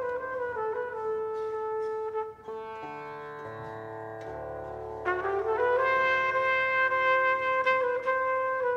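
Live improvised world-jazz: a pocket trumpet holds long notes that bend and step between pitches. The playing drops to a quieter, lower passage a little after two seconds in and comes back in louder about five seconds in.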